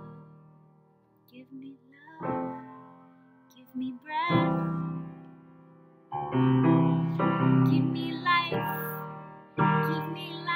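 A woman singing to keyboard accompaniment, chords struck every second or so. It is near quiet for the first two seconds, then the chords and sung phrases come in and grow fuller.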